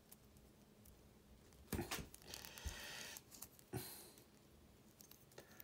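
Faint handling of small LEGO plastic pieces as minifigure claw pieces are turned in the figure's hands: two quick clicks just under two seconds in and another near four seconds, with a soft rustle between them.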